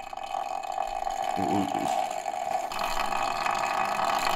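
Electric circulator fan running just after being switched on: a steady whirr with a grinding noise, which the owner traces to an inner part rubbing because of play where a spacer bushing has gone missing. The sound gets louder about two-thirds of the way in.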